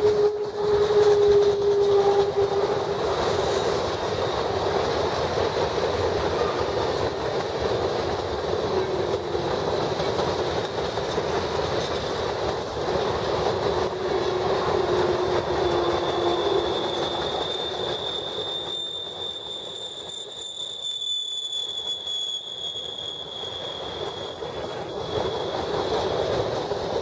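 Freight train of covered hopper cars rolling past, with steady wheel-on-rail noise. Drawn-out wheel squeal tones ride over it: a lower one through the first half and a high-pitched one from about two-thirds in.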